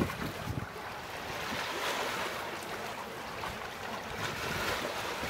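Water rushing along the hulls of a moving sailing catamaran, a steady hiss, with wind gusting on the microphone in the first second.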